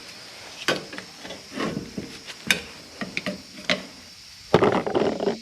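Scattered metallic clicks and knocks of hand work on a rear brake caliper assembly, about five of them over the first four seconds, then a short scraping rattle near the end.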